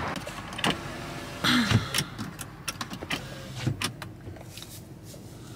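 Scattered clicks and knocks of someone moving about in a parked car's cabin, with a brief falling hum from a woman about a second and a half in.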